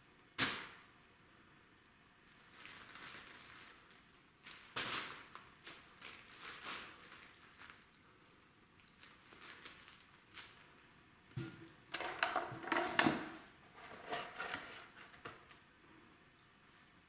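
A cellophane bag crinkling and crackling as a kitten plays in it and paws it, in irregular bursts of sharp crackles, with one loud crack about half a second in.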